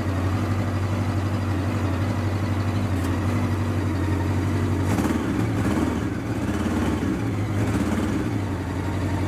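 1999 Honda Nighthawk 750's air-cooled inline-four engine running at idle. About five seconds in, the engine note shifts and wavers for a few seconds, then settles back to a steady idle.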